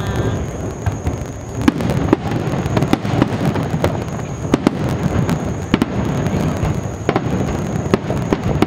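Aerial firework shells bursting in quick, irregular succession: sharp bangs over a continuous low rumble of distant booms.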